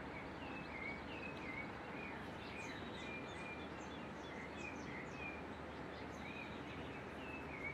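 Small birds chirping in the background, a steady run of short chirps several times a second, over a steady low noise.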